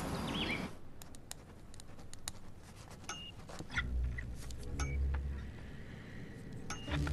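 Birds chirping that cut off abruptly under a second in, then a quiet room with scattered small clicks and clinks. A faint low hum comes in from about four seconds in.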